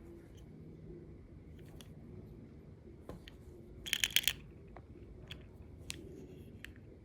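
Faint steady low hum with scattered small clicks, and a quick run of four sharp clicks about four seconds in.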